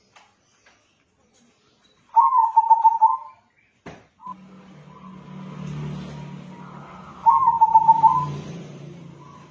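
Zebra dove (perkutut), a local crossbred bird, singing its rapid staccato cooing song in two loud phrases about five seconds apart. A single sharp click falls between them, and a faint low hum runs under the second phrase.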